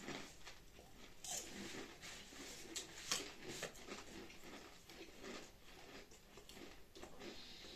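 Potato crisps being chewed: faint, irregular crunching.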